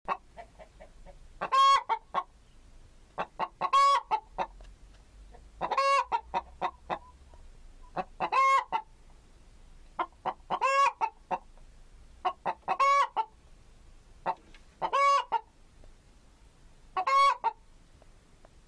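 Domestic chicken (Gallus gallus) calling in a repeated pattern: a few quick clucks, then a longer drawn-out note. The pattern comes about every two seconds, eight times over.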